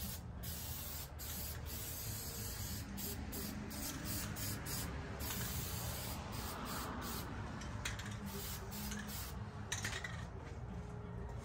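Aerosol spray can of rust reformer hissing in a run of short bursts with brief breaks between them, misting a light coat onto a steel frame.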